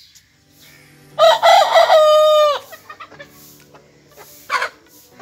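Young Aseel cockerel crowing once, one of its first crows: a short crow that ends in a held note and drops off, followed by a short cluck near the end.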